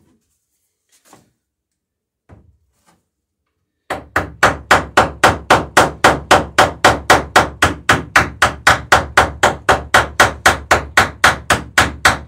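A few faint knocks, then a fast, steady run of hammer blows, about four a second, peening over a rivet while riveting a wooden dory's plank lap.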